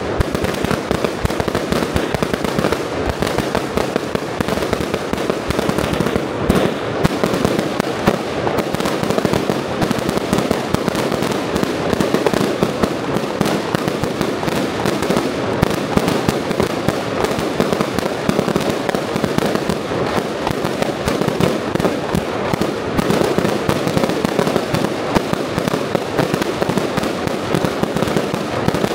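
Dense, unbroken crackling of firecrackers going off in rapid succession, hundreds of bangs running together at an even loudness.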